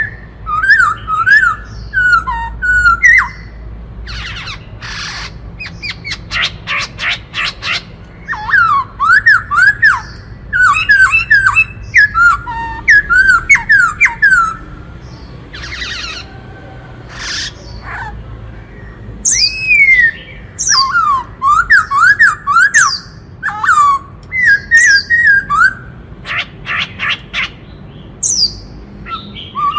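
Black-throated laughingthrush singing: phrases of quick whistled notes that swoop up and down, broken several times by short harsh rattling chatters.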